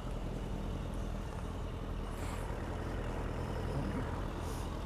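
Motorcycle engine idling, a low steady hum.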